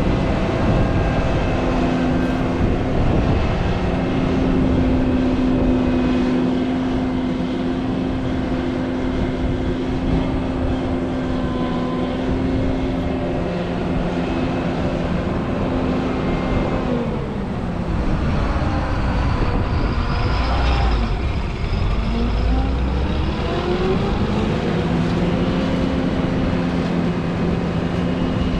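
John Deere 9500 combine's turbocharged six-cylinder diesel engine and threshing machinery running steadily. About two-thirds of the way through the pitch drops, with a deeper rumble. It then climbs back up to its working pitch.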